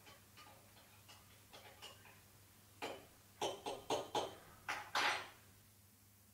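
A teaspoon clinking against a cup while stirring: soft light ticks at first, then a run of about six louder, sharper clinks from about three seconds in, the last one a little longer.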